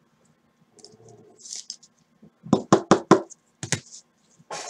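Sharp knocks on a tabletop by hand: a quick run of about five raps two and a half seconds in, then two more single knocks, after a faint rustle.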